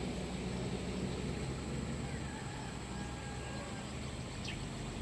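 Outdoor ambience: a steady low rumble of car traffic in the background, with a few faint bird calls in the middle and a short chirp near the end.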